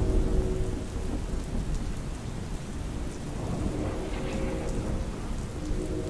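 Steady rain with a low thunder rumble, loudest at the start. A faint chord of a synthesized distant train horn sounds about four seconds in and again just before the end.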